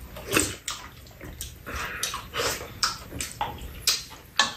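Two people eating stir-fried chicken: wet chewing and slurping in short, irregular bursts, with occasional sharp clicks of chopsticks and a spoon against the dishes.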